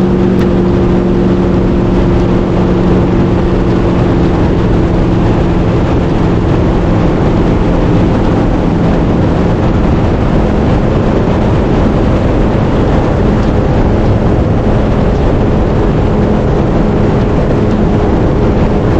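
A vehicle engine running steadily at speed under loud, constant rushing noise. Its engine tone is plain for the first few seconds, then fades into the rush.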